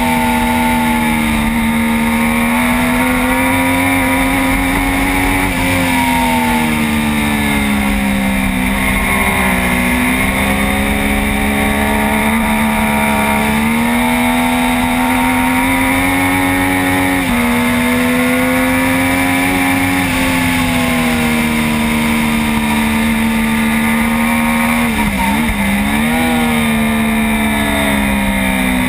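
Triumph Daytona 675's inline three-cylinder engine running hard at high revs, its pitch slowly rising under throttle and sagging into corners. There are a few sudden jumps in pitch, and a quick run of downshifts near the end.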